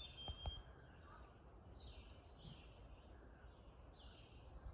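Near silence, with faint high bird chirps now and then and two soft ticks in the first half second.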